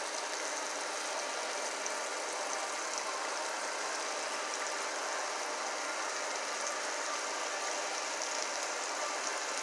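Chicken gizzards frying in oil in a skillet: a steady sizzle with fine crackling.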